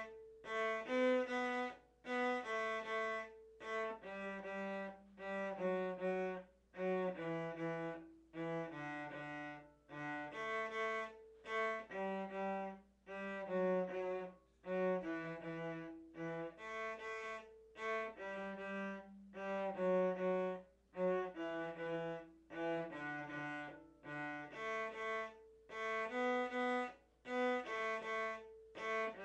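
A cello playing a simple beginner tune: short, separate bowed notes in a steady rhythm, in short phrases with brief breaks between them.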